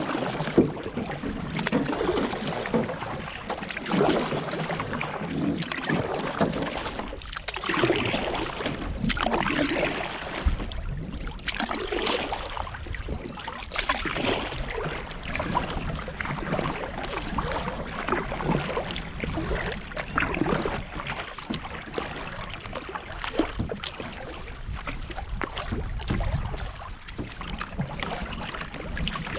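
Canoe paddle strokes dipping and splashing in calm water beside the hull, with water swishing along the canoe, swelling and fading about every two seconds.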